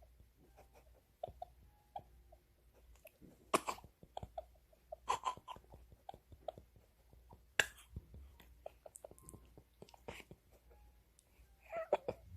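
A two-month-old baby's small mouth noises and breathing: soft wet clicks and smacking, with a few brief louder breaths or grunts.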